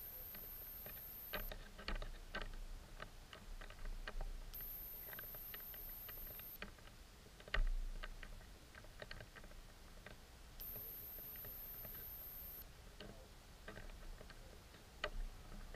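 Underwater sound picked up by an action camera: scattered small clicks and ticks, one dull knock about seven and a half seconds in, and a thin high whine that comes and goes three times.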